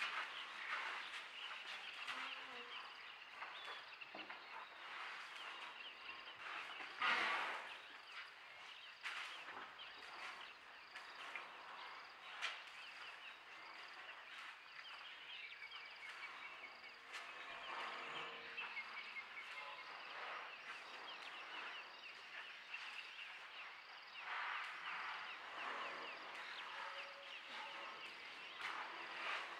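Early-morning outdoor ambience in the bush: a dense chorus of small birds and insects chirping, with a faint high pip repeating at an even pace. A brief louder rustling noise stands out about seven seconds in.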